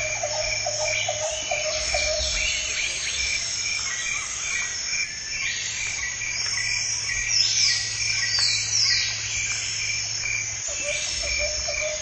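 Jungle ambience: insects trill steadily throughout. Frog-like pulsed calls come in the first second and again near the end, and birds give falling whistled calls around the middle.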